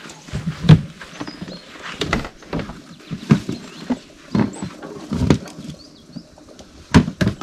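Irregular knocks and clicks of bread, utensils and a sandwich toaster being handled while toasted sandwiches are assembled, loudest about a second in and again near the end.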